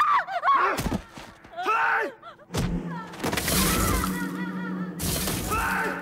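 Yells and a hard hit in a fist fight. Then a low steady music drone under a long loud rush of noise, like something shattering, with another shout near the end.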